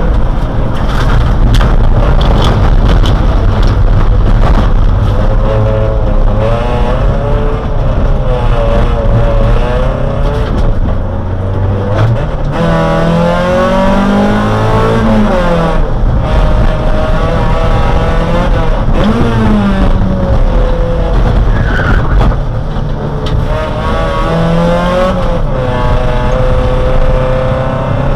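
Race car engine heard from inside the cabin at racing speed, its pitch climbing and dropping with gear changes, most sharply around the middle, over steady rumble and road noise.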